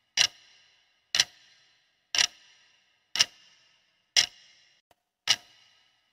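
Clock-tick sound effect of a quiz countdown timer, ticking steadily about once a second, six ticks in all.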